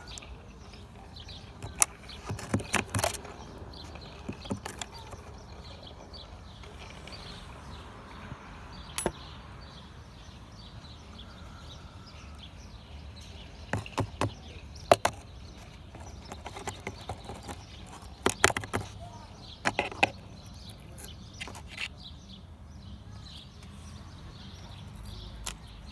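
Sharp clicks and knocks of tools working metal pins and plastic parts out of a BMW X3 E83 sunroof mechanism, in scattered clusters of a few strikes each over a faint steady background.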